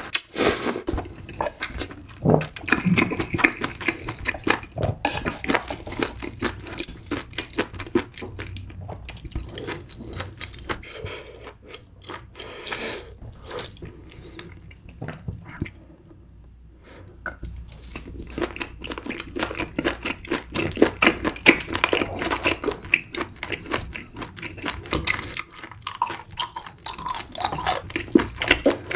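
A person chewing and eating close to the microphone: a steady run of wet mouth clicks and bites, easing off briefly past the middle before picking up again.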